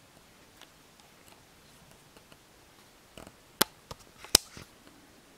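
Handling noise: a few short, sharp clicks and taps from about three seconds in, the loudest a little after four seconds.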